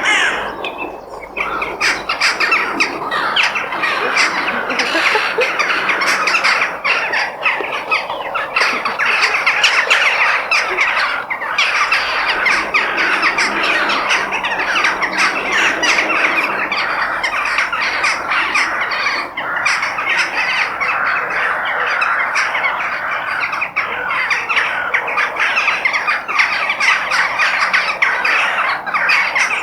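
A flock of crows cawing, many birds calling over one another in a dense, continuous chorus.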